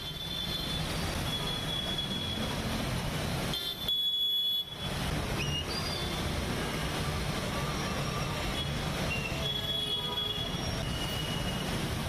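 Street traffic on a flooded road: motor scooter, motorbike and auto-rickshaw engines running through standing water under a steady noisy wash, with thin high squeals coming and going.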